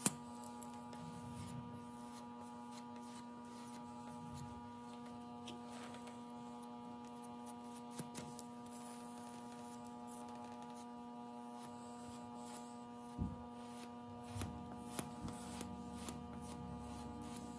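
A steady electrical hum with several even tones, under faint scrapes and taps of a metal putty knife spreading and smoothing wood filler. The taps and scrapes come more often near the end.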